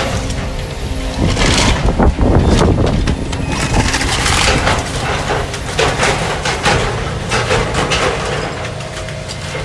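Tracked excavator's diesel engine running steadily while it tears and crushes scrapped airliner fuselage. Irregular crunching, scraping and clanking of metal, the heaviest about two seconds in and again around four seconds.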